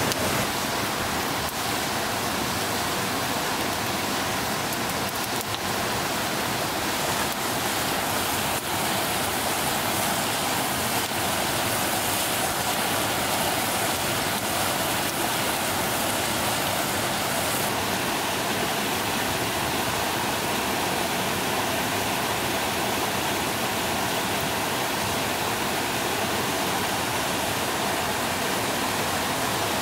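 Steady rushing of flowing stream water, an even hiss with no breaks.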